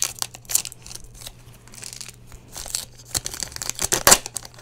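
A Magic: The Gathering set booster pack's foil wrapper torn open and crinkled by hand: a run of crackles and small rips, with the loudest rip about four seconds in.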